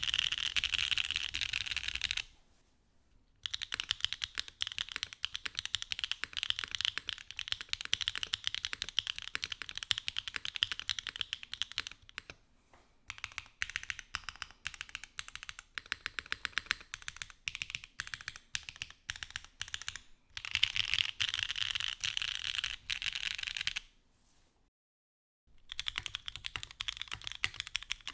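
Steady typing on a Mode Sonnet mechanical keyboard fitted with Ghost Dragon switches, a POM plate and a copper bottom case, a fast run of key clicks. The first couple of seconds are in top mount; after a short pause it is in foam stack mount. Near the end, after another brief silence, the typing starts again as a back-to-back comparison of setups.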